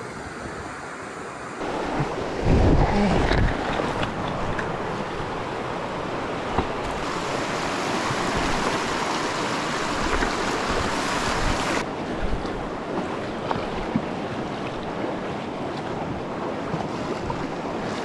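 A small mountain stream rushing over stones in a shallow riffle: a steady hiss of running water. A few low thumps come about two to three seconds in.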